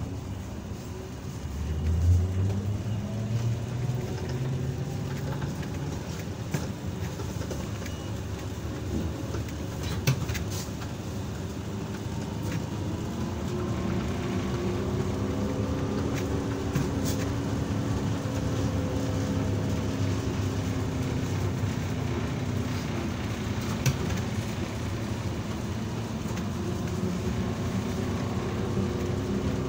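ZiU-682G trolleybus under way, with the rumble of the running gear and the whine of its electric traction motor. The whine rises in pitch as the trolleybus picks up speed, levels off, then rises again near the end. A few short knocks or clicks come through along the way.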